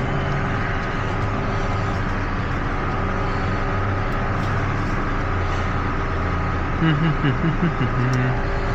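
A steady machine hum with a few faint constant tones running underneath, and a brief low muttering voice near the end.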